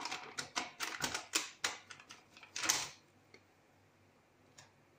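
Plastic packet of gulab jamun mix crinkling and being tapped and shaken in a run of sharp clicks, about four a second, as the last powder is knocked out onto a steel plate. The clicks stop about three seconds in.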